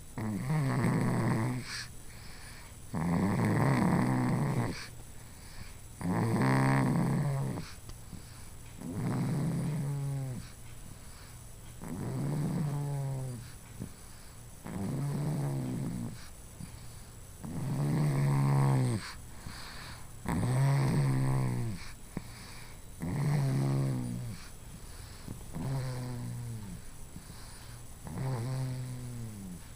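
Steady, rhythmic snoring in sleep: about eleven snores, one every two to three seconds. Each is a rough, pitched rasp lasting about a second that sags in pitch as it fades.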